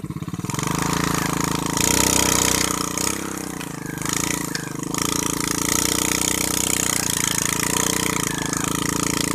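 Engine of a paddy-rice machine picking up from a slow, pulsing idle about half a second in, then running steadily faster under a rushing, hissing noise.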